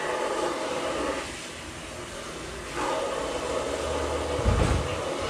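Steady rushing hum with shifting handling noise as a steel Jeep front bumper is moved on a wooden workbench, and heavy low thumps about four and a half seconds in as it bumps against the bench.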